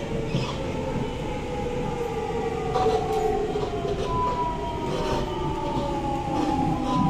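Interior of a Siemens C651 metro car in motion: wheel and track rumble under a whine of several tones that slowly falls in pitch as the train slows. Occasional knocks come from the bogie, which has a weird bogie sound.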